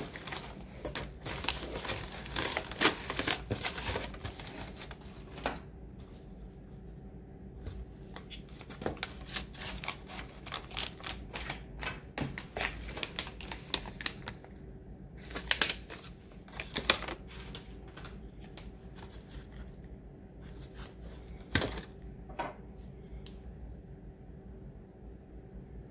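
Plastic-wrapped cosmetic packages and tissue paper rustling, crinkling and clicking as they are handled and fitted into a cardboard box. The crinkling is dense for the first few seconds, then gives way to scattered clicks and taps, with a busier patch about halfway through. A faint steady hum runs underneath.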